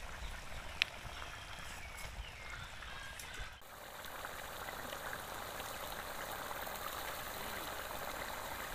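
Thick chicken gravy boiling in a metal pot over a wood fire, a dense bubbling and fizzing. There is one sharp click about a second in, and the bubbling becomes louder and more even about three and a half seconds in.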